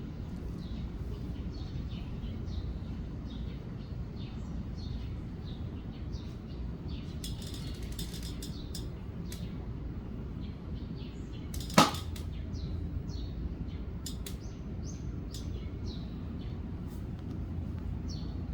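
Strong wind rumbling on the microphone while small birds, which the uploader takes for sparrows, give many short chirps. A single sharp click about two-thirds of the way through is the loudest sound.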